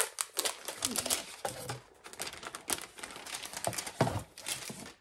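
Tissue paper crinkling and rustling in quick, irregular crackles as it is unfolded by hand from around a folded scarf in a gift box.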